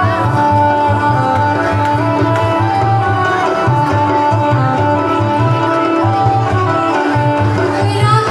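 Loud Indian instrumental music: a steady drum rhythm under long held melody notes. A singing voice comes in near the end.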